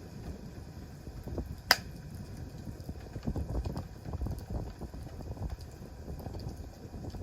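Wood campfire burning, with irregular small crackles over a low rumble and one sharp, loud pop a little under two seconds in.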